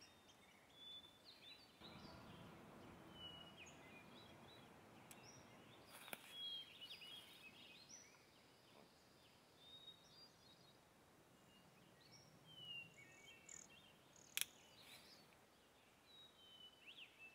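Near silence, with scattered faint bird chirps and short calls throughout. A soft low rustle comes about two to four seconds in, and a single sharp click about fourteen seconds in.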